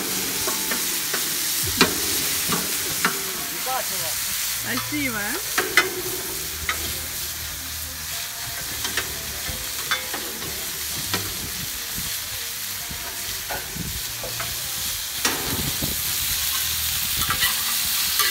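Pelmeni sizzling as they fry in oil in a wide pan over charcoal, with a metal ladle scraping and clicking against the pan as they are stirred.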